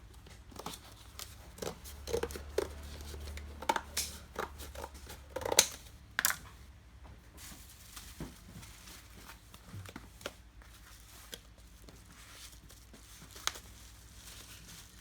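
Plastic bubble wrap being handled and wrapped around a cube: irregular crinkles, crackles and clicks, busiest and loudest from about two to six seconds in.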